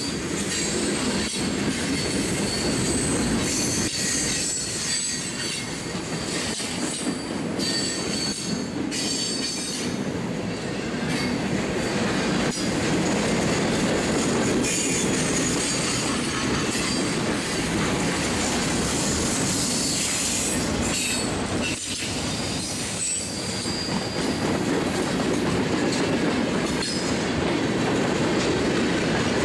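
Freight train's boxcars and tank cars rolling past: a steady rumble of steel wheels on rail, with faint high wheel squeal coming and going and scattered clicks as wheels cross rail joints.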